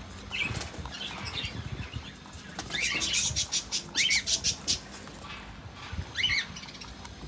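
Two rabbits crunching pieces of apple and cucumber, heard as short runs of rapid crisp clicks a few seconds in. Birds chirp briefly now and then.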